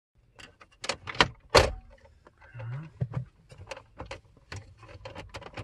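Plastic retaining clips of a BMW F11's centre-console gear-selector trim panel snapping loose as the panel is pried up with a plastic trim tool. Three sharp loud snaps come about a second in, followed by lighter clicks and creaks of the plastic panel. This popping is normal as the clips release and is no sign of breakage.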